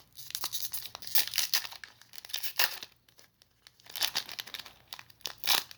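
Japanese Pokémon cards and their foil booster-pack wrapper being handled, crinkling and rustling in quick runs, with a short lull about halfway through.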